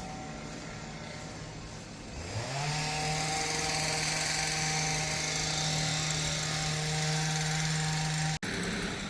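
Small petrol engine of a handheld lawn tool. It revs up about two seconds in and holds at a steady high speed, then breaks off suddenly near the end.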